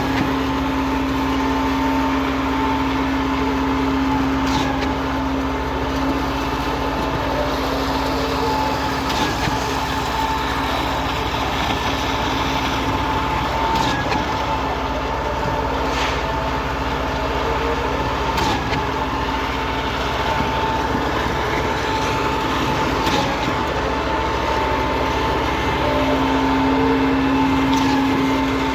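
Cifa K42L truck-mounted concrete pump running steadily, with a short sharp knock about every four to five seconds.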